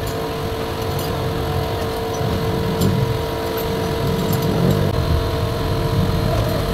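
A steady mechanical hum with a constant tone throughout, the sound of a running motor nearby rather than of the engine being worked on. A few faint light clicks come from the valve cover and its fittings being handled.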